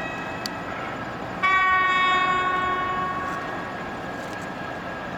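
Electric locomotive's horn sounding once, a high note with overtones that starts suddenly about a second and a half in, is held for about two seconds and then dies away.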